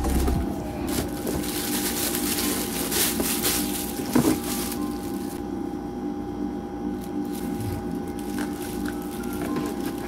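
Rustling and crinkling of cardboard and plastic wrapping as a hair dryer is unpacked from its box, busiest in the first five seconds, with a light knock about four seconds in, then quieter handling.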